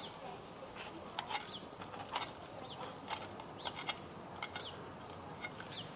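Scattered light clicks and taps of a kitchen knife cutting the stem ends off Turkish pointed peppers, with a bird's short chirps falling in pitch about once a second.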